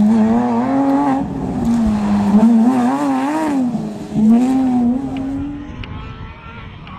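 Porsche 997 GT3 rally car's flat-six engine at high revs through a bend, its note rising and falling several times with the throttle, over tyre noise on the loose surface. The engine fades away after about five and a half seconds as the car drives off.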